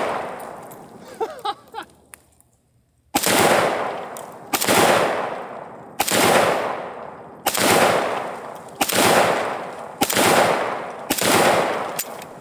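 AK-47 rifle firing 7.62x39 rounds in single aimed shots: one shot at the start, a pause of about three seconds, then seven more about every second and a half. Each shot trails off in a long echo.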